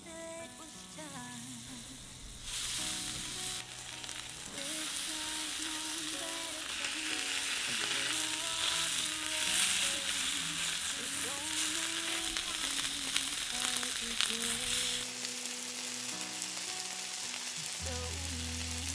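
Thick slices of steak searing in butter in a hot metal pan, sizzling. The sizzle comes in a couple of seconds in, grows louder, and eases off a little near the end.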